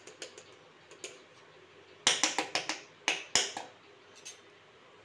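A run of sharp metallic taps and clinks, loudest in a quick cluster of about eight in the middle: small steel bowls and a steel spoon knocking together, with fainter clicks before and one after.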